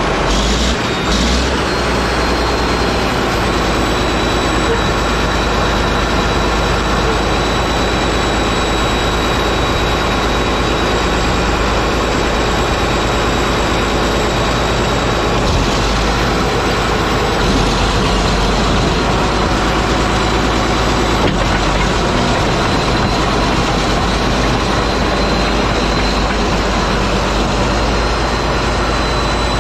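Caterpillar D8H bulldozer's engine running loud and steady after being brought back to life.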